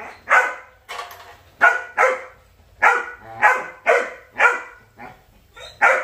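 Belgian Malinois puppies, about 80 days old, barking: a run of about nine short, sharp barks roughly every half second, with a pause near the end.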